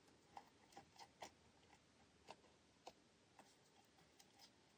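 Near silence with faint, light clicks, about eight scattered over the first three seconds and a couple more later, as metal tweezers press a tiny hinge down onto the edge of a miniature door.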